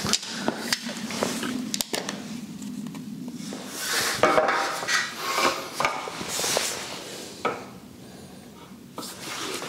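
A long metal ruler being handled and laid on a sheet of plasterboard: a few sharp metallic clicks and knocks in the first two seconds, then scraping as it is slid into line across the board.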